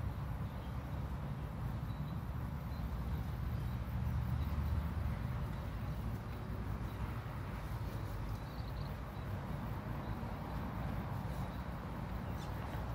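Wind gusting over the microphone in a steady low rumble.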